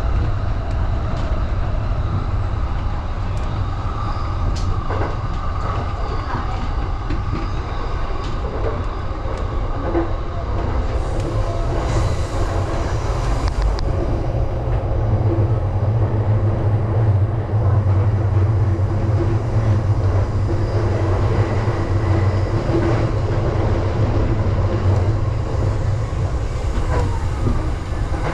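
Joban Line electric commuter train running on the rails, heard from inside the front car: a steady rumble with scattered clicks from the wheels over rail joints. The rumble grows louder about halfway through.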